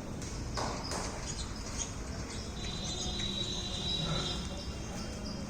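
Birds chirping over steady background noise, with a steady high-pitched trill starting about halfway through.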